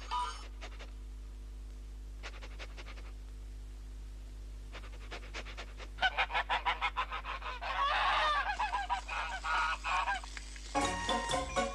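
Goose honking and cackling in rapid, excited repeated calls, loudest in the middle, as a cartoon sound effect. Music comes in near the end.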